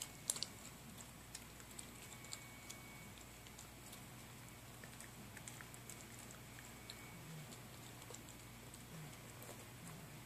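Faint, scattered crunching clicks of a puppy chewing dry kibble, with a few louder clicks about half a second in.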